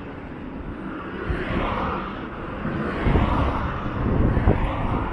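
Road traffic on a bridge roadway: a steady wash of car tyre and engine noise that swells twice as vehicles pass, with low rumbles underneath.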